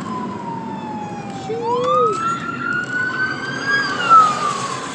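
Emergency vehicle siren wailing: one slow tone that falls, rises about a second and a half in, then falls again near the end, over the road noise of a moving car with its window open.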